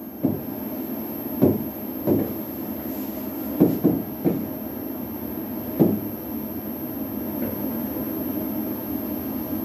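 A stylus tapping and knocking against an interactive whiteboard screen during handwriting: about seven short, dull taps over a steady background hum.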